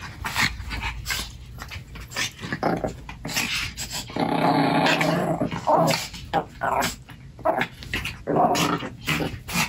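Two Pomeranian spitz dogs play-fighting, growling in short bouts, with one longer growl around the middle. The growls are play, not aggression.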